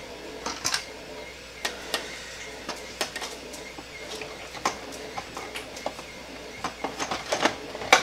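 Hard plastic clicking and knocking as the outer shell half of a Nerf Rhino Fire blaster is set back onto its frame: irregular light clicks, coming closer together near the end.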